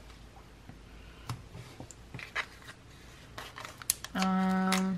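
Faint taps and light rustles of planner stickers being handled over the page, then, about four seconds in, a woman humming a steady, thoughtful "mmm" for just under a second.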